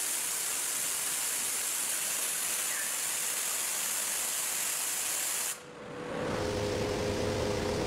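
CNC machine drilling steel plate, a steady hiss. About five and a half seconds in, the sound drops briefly and a second machining sound takes over as a different cutter runs: a steady hum with a held mid-pitched whine.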